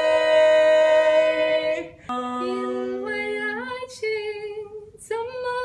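A man and a woman singing unaccompanied in harmony, holding a long note together that ends about two seconds in. More singing follows, with a steady low held note underneath the higher voice.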